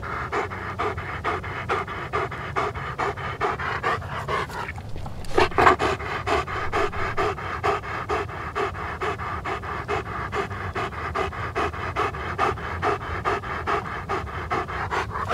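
Dog panting in a fast, even rhythm of short breaths, with a brief break about five seconds in and then a couple of louder breaths.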